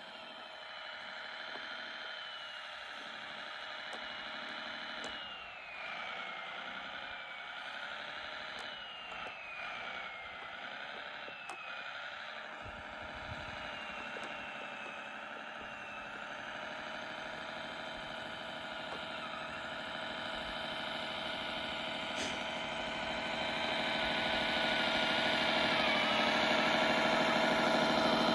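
Kyosho Blizzard RC snowcat's electric motor and gearbox whining steadily, the pitch dipping and rising several times as the throttle changes, growing louder near the end.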